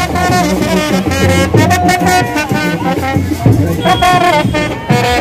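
Indian wedding brass band (baraat band) playing a melody on trumpets over drums.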